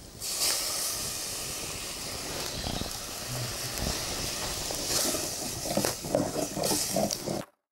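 A pot of flour porridge hissing over an open wood fire as it is stirred with a wooden spoon, with a few clunks of the spoon against the pot in the last couple of seconds. The sound cuts off abruptly just before the end.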